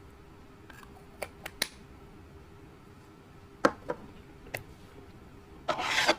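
Makeup containers and tools being handled: a string of sharp clicks and snaps, two of them loud a little past the middle, then a brief crunchy crackle near the end.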